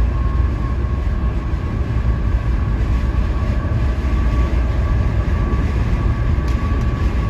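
Steady road and wind noise inside a car driving at highway speed, with a deep rumble and a faint steady whine.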